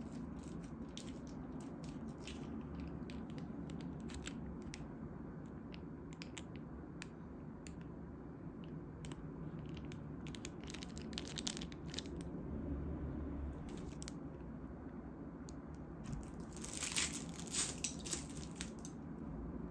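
Crunching of crisp fried chicken from a convenience-store bento as it is eaten, with scattered light clicks and a flurry of louder crunches near the end.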